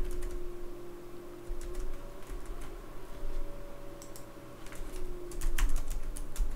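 Typing on a computer keyboard: scattered key clicks, with a quicker run of keystrokes near the end.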